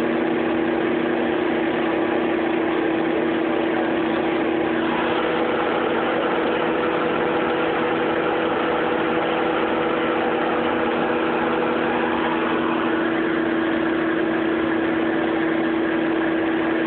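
Microwave oven running: a steady electrical hum over even fan noise.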